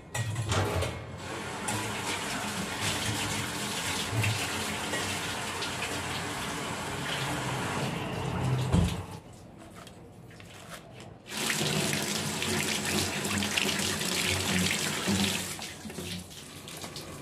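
Water from a kitchen tap running into a stainless-steel sink while an egg is rinsed under the stream. About nine seconds in there is a knock, the flow stops for about two seconds, then it runs again.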